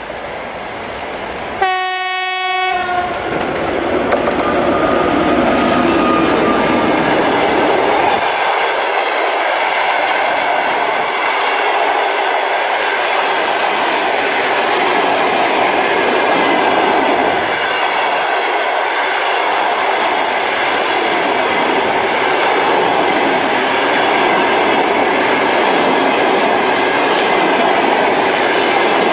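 Diesel locomotive horn sounds one blast of about a second, about two seconds in. Then the train rolls past with steady wheel-on-rail noise and clickety-clack over the rail joints.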